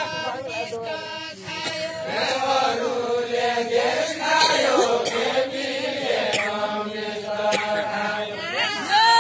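A group of voices singing a deuda, the Far-Western Nepali folk song of the deuda khel, in a chant-like unaccompanied line, held notes overlapping; the singing swells louder near the end.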